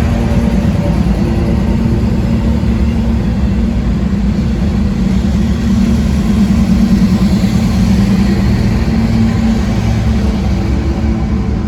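Train locomotive engine running loud and steady as the train passes, swelling slightly a little past the middle.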